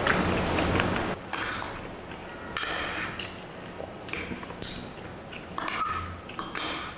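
Metal spoon and fork scraping and clinking against a glass baking dish while scooping up thick lomi noodles, in short irregular scrapes and clicks.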